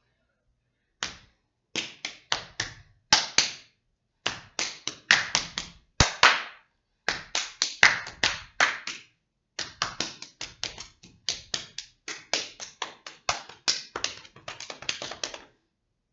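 Body percussion from a dancer: a long run of sharp hand strikes, several a second in uneven clusters with short gaps between groups, starting about a second in and stopping shortly before the end.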